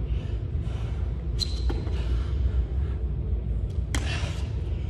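A man doing burpees on a gym floor over a steady low rumble. There are a few light knocks, and about four seconds in a short burst of noise comes as he drops into the plank.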